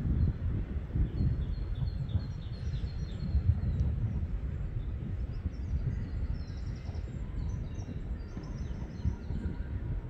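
Gusty low rumble of wind buffeting the microphone, with faint bird chirps scattered high above it.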